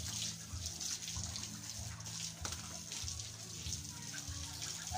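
Garden hose spraying a stream of water over piglets, a steady hiss of running and splashing water.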